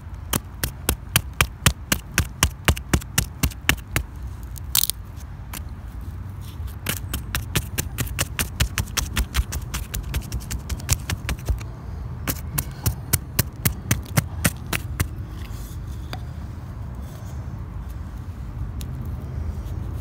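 A wooden stick jabbing at hard clay and rock to dig out a half-buried geode: a rapid run of sharp knocks and scrapes, about four a second. The knocks come in three bursts with short pauses between and stop about fifteen seconds in.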